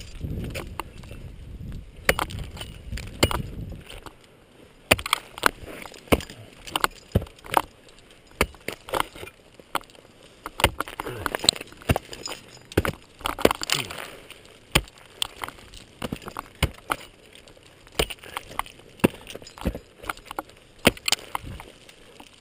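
Ice tools and steel crampons striking and kicking into frozen waterfall ice: a series of sharp, irregular impacts, about one or two a second. A low rumble runs under the first few seconds and stops about four seconds in.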